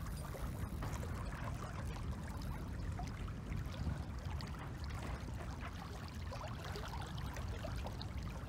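Steady wind rumble on the microphone over small waves lapping at a gravel lakeshore.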